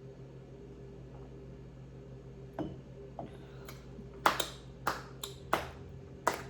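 A person gulping lemonade down greedily: a run of sharp, short swallowing gulps about every half second, the loudest about four seconds in, over a low steady hum.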